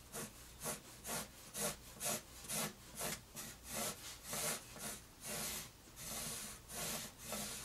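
Pencil lead rubbing on paper, drawing a light vertical line in repeated short strokes at about two a second. The last few strokes are a little longer.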